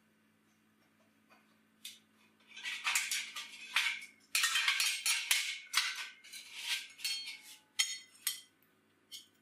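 Steel plates being handled and scraped against a slotted steel bench: a run of metal-on-metal scraping and clinking, followed by a few sharp clinks near the end.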